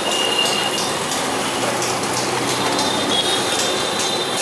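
Steady background noise at a street dosa griddle, with a few brief high-pitched tones and light clicks over it.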